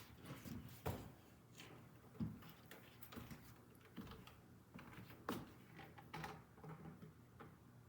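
A handful of soft, scattered knocks and bumps from a flat-pack cabinet side panel being fetched and handled.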